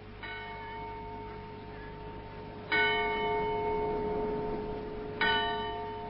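A bell struck three times, about two and a half seconds apart, each stroke ringing on and slowly fading; the first is softer and the second is the loudest. It serves as a bridge between two scenes of a radio drama.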